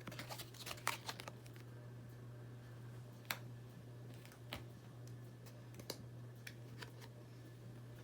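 Trading cards being handled and pulled apart by hand: scattered light clicks and taps of card stock, over a steady low hum.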